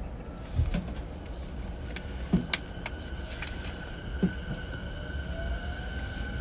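JR E233-5000 series commuter train starting to move off from a station, heard inside the car: a few dull clunks from the car body and brakes, then the VVVF inverter's steady high tone comes in and the traction motors' whine begins to rise as it pulls away.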